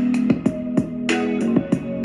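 A song with guitar and a steady drum beat played back through a small 3 W Zebronics Zeb County Bluetooth speaker at about 90% volume.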